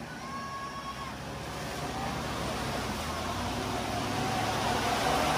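Car engine running, with tyre and road noise, growing steadily louder.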